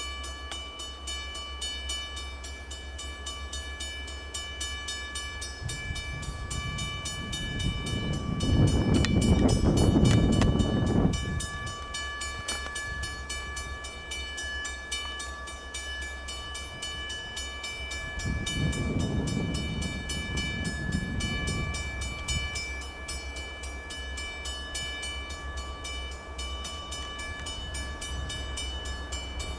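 Diesel locomotives of a Norfolk Southern coal train approaching slowly: a steady low engine rumble that swells up loudly twice, about eight seconds in and again about eighteen seconds in.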